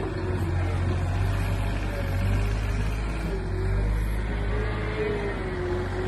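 Yanmar compact wheel loader's diesel engine running steadily under load, a low drone with a faint whine over it that wavers slowly in pitch.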